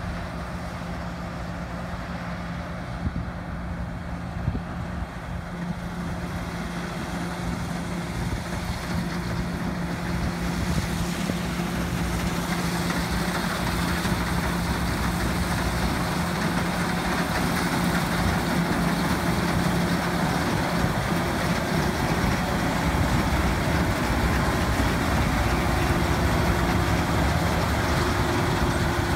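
Fendt 6335 C combine harvester at work harvesting, its engine and threshing gear running with a steady hum. It grows louder over the first half as the machine draws close, then holds steady.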